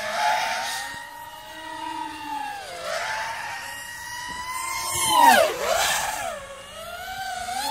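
FPV racing quadcopter motors whining, the pitch rising and falling as the throttle changes. The loudest moment comes about five seconds in as a drone sweeps past, its pitch dropping sharply.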